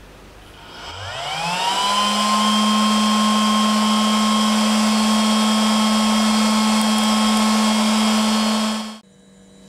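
Cooling fans of a home-built four-channel power amplifier spinning up at power-on: a whine rises in pitch for about a second, then settles into a steady hum with a rush of air. It cuts off suddenly near the end.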